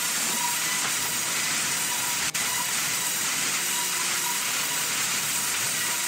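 Sawmill band saw running and cutting timber: a steady high hiss with a faint steady whine underneath, broken by a momentary dropout a little over two seconds in.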